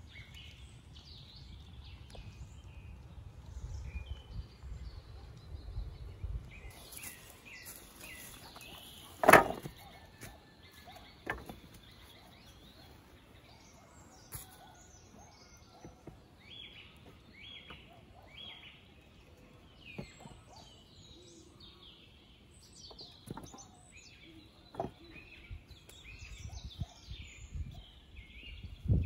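Small birds chirping and singing in woodland, with a few sharp knocks. The loudest knock comes about nine seconds in, another about two seconds later, and fainter ones near the end.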